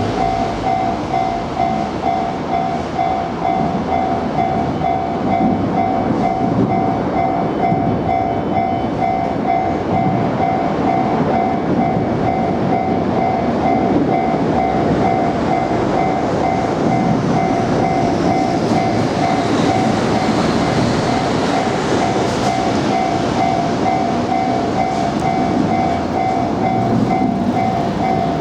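A Japanese level-crossing warning bell rings in a steady, evenly repeating pattern while a freight train passes over the crossing, its wagons making a continuous rolling noise on the rails.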